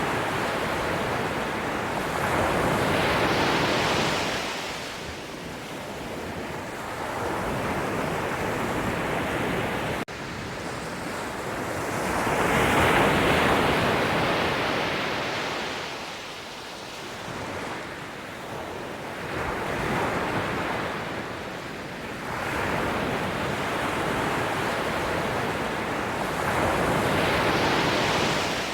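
Ocean waves breaking on a shore, the surf swelling and falling away in turn about every eight seconds.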